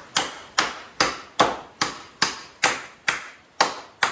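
Hammer striking nails in old timber, about ten sharp blows at an even pace of just over two a second: knocking protruding nails back flat in demolished rafters.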